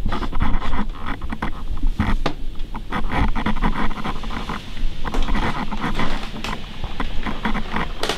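Irregular scraping, rubbing and tapping noises, with a low rumble, from a hand-held camera being carried and swung about as things brush and knock against it.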